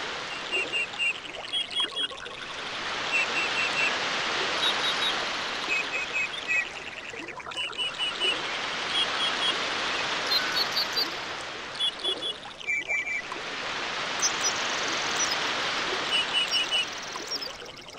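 Tropical nature ambience: rushing water that swells and ebbs every five to six seconds, with a small bird chirping repeatedly in quick runs of three or four high notes.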